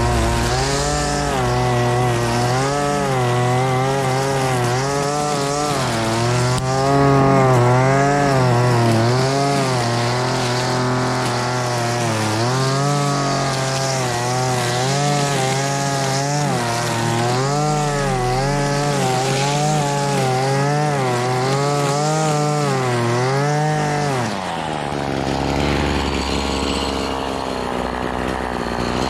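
Hitachi gas string trimmer's two-stroke engine running at high speed while cutting grass, its pitch rising and falling as the throttle is worked. About 24 seconds in it drops to idle.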